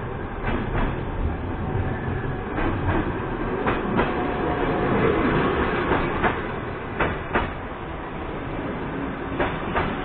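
A train passing: a steady rumble with scattered sharp clicks, swelling around the middle and easing off toward the end.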